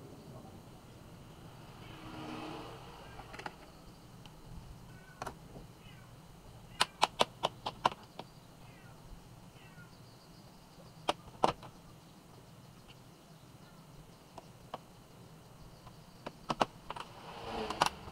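Sharp plastic clicks and taps of a laptop's bottom cover being opened and handled: a quick run of about six clicks, two more a few seconds later, and a few near the end, over faint handling noise.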